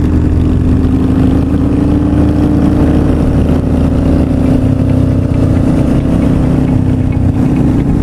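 Motorcycle engine running steadily at cruising speed, with wind noise over the bike-mounted microphone.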